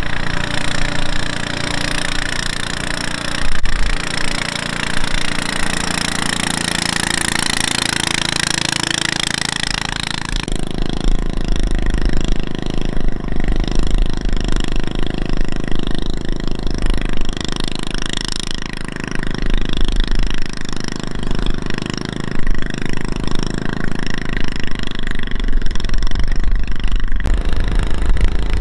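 Diesel engine running steadily with a rapid, knocking beat. About ten seconds in, a strong hiss drops away and a deeper engine note carries on.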